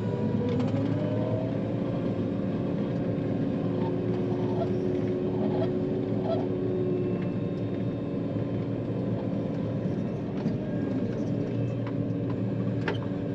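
John Deere 9500 combine's diesel engine running, heard from the cab, with several steady whining tones over a constant drone; one tone rises in pitch in the first second.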